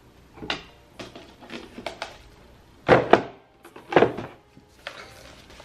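Unboxing a digital photo frame: a paper insert and a plastic-bagged item are pulled out of a white cardboard box. This gives a string of rustles and scrapes, the two loudest about three and four seconds in.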